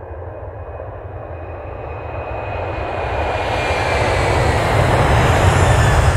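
Outro logo sound effect: a rushing roar over a deep rumble that swells steadily louder and peaks near the end, with a faint thin whistle sliding slowly down in pitch above it.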